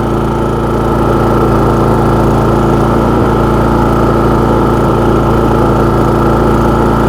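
Champion 4500-watt inverter generator's gasoline engine running steadily at raised speed with eco mode switched off.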